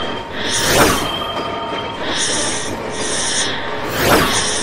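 End-screen sound effects: two whooshes, one about a second in and one near the end, over a looping background music track.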